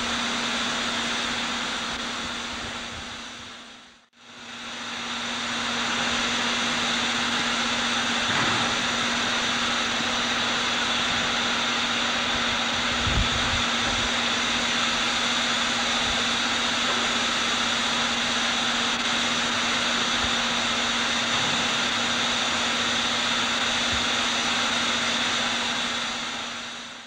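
Steady hiss of steam escaping from steam locomotives standing in a locomotive shed, with a steady low hum beneath it. The sound fades out and back in about four seconds in.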